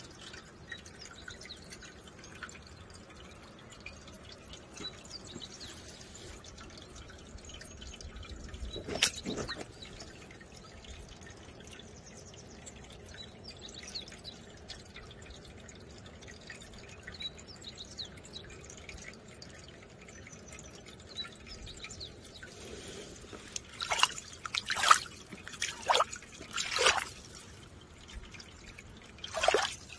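Water dripping and trickling over rock into shallow water, with faint scattered drips and one louder drop about nine seconds in. Several louder drips come in quick succession near the end.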